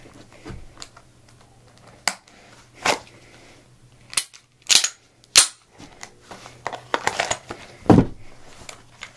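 Several separate sharp clicks from a pistol being drawn from an inside-the-waistband holster and dry-fired, including the snap of the trigger releasing the striker, which shows the holster did not trip the trigger while holstering. A duller knock near the end.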